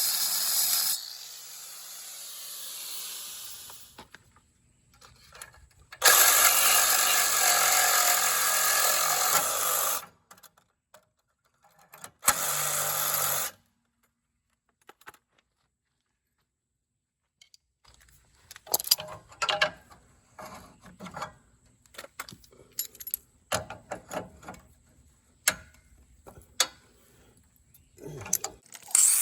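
Angle grinder cutting steel in short runs, winding down after the first cut, with a longer cut of about four seconds in the middle. Later comes a string of irregular sharp knocks and clicks.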